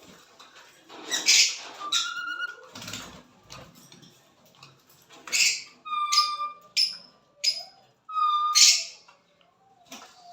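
Small pet parrots calling: a string of loud, short, sharp screeches and chirps, several of them clear whistled notes, coming every second or so.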